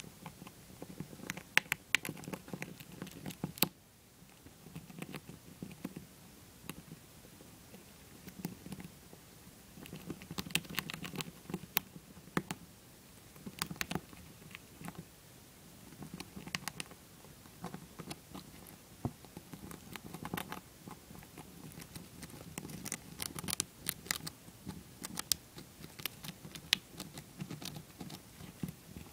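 Dwarf hamster gnawing a shelled peanut: small sharp crunches and clicks in irregular clusters, with a quieter pause between.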